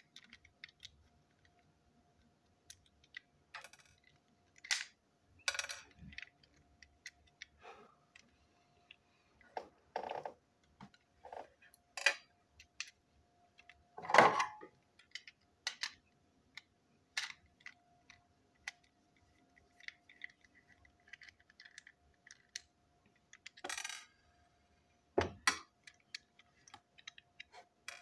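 Small plastic parts and tiny screws clicking, tapping and rattling as a plastic toy locomotive's gearbox is taken apart by hand with small screwdrivers, in scattered short knocks with a few louder taps as parts are set down on the table. A faint steady hum runs underneath.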